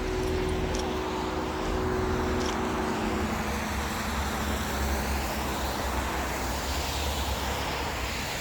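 Road noise inside a moving car: a steady low rumble of tyres and engine. A faint steady hum sits over it and stops about three seconds in.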